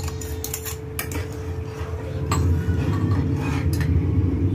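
Steel ladle clinking and scraping against an aluminium pot as coconut milk is stirred into a hot agar mixture: several sharp taps over the steady low rumble of the gas burner.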